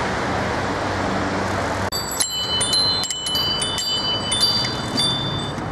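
Steady road traffic noise, then from about two seconds in several bicycle bells ringing over and over at different pitches, over continued street noise.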